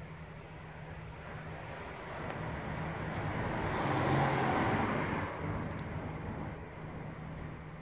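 A car driving past: its noise swells to a peak about halfway through and fades again, over a steady low hum.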